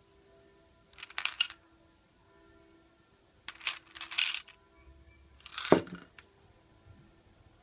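Sweets clinking and rattling against a cut-glass bowl as fingers dig and stir through them, in three short bursts of sharp clicks: about a second in, around three and a half to four and a half seconds, and near six seconds.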